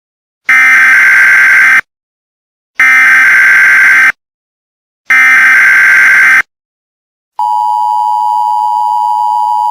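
Emergency Alert System signal: three identical SAME header data bursts, each a little over a second long with about a second's gap between them, followed near the end by the steady two-tone attention signal, which starts and holds.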